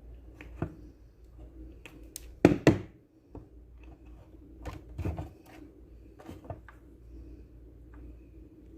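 Scattered clicks and knocks of hand tools and small blender parts being handled during a repair, with two loud knocks close together about two and a half seconds in and another louder knock about five seconds in.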